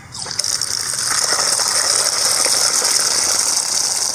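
A stream of water pouring hard into a plastic basin of potatoes, a steady loud hiss and splash that starts abruptly a moment in, as the potatoes are rinsed.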